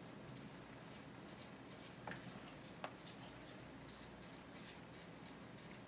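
Faint scratchy strokes of a paintbrush laying acetone onto a painted rifle stock, with two light taps about two and three seconds in.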